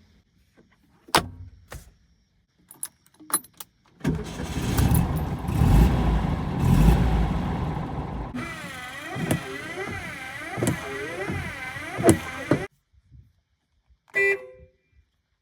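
1962 Porsche 356B's air-cooled flat-four engine: a few sharp clicks, then the engine starts about four seconds in and runs loudly. It is revved up and down several times and cuts off suddenly, and a single click follows near the end.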